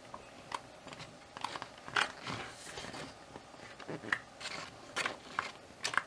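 Glossy pages of a softcover rulebook being leafed through: a string of short, crisp paper flicks and rustles, with a longer swish of a page sliding over about two seconds in.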